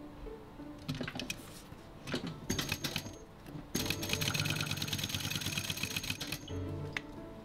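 Mitsubishi Electric industrial sewing machine stitching leather: a short burst of stitches about two and a half seconds in, then a longer run of rapid, even stitching with a steady high whine from about four seconds in, stopping near the end.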